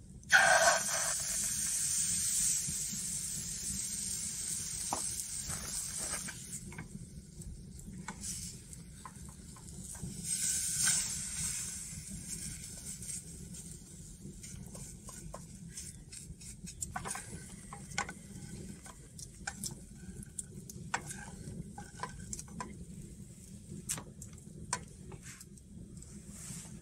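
Pancake batter hitting a hot frying pan on a portable gas stove and sizzling loudly, the sizzle fading over about six seconds; a second, shorter sizzle comes about ten seconds in. After that, light clicks and scrapes of a wooden spatula in the pan.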